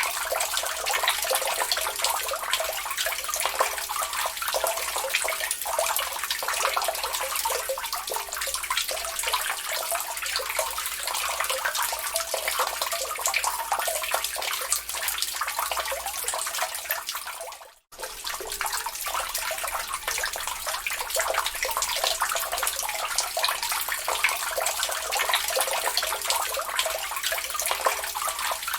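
Water dripping and trickling into a lake: a dense, steady patter of drips. About two-thirds of the way through it fades out to near silence for a moment and comes straight back.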